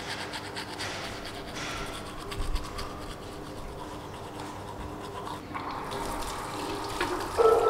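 Toothbrush scrubbing teeth in quick back-and-forth strokes, then, from about five and a half seconds in, water running into the sink as he bends to rinse, with a louder splash at the very end.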